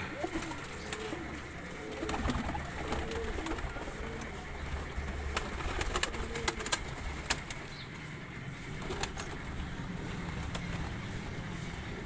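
Several domestic Girebaaz pigeons cooing in a loft, call after call overlapping for most of the stretch and thinning out towards the end, with scattered sharp clicks.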